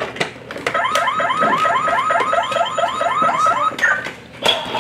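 Battery-operated Road Rippers toy car's electronic sound effect: a run of quick rising chirps, about four a second, lasting about three seconds.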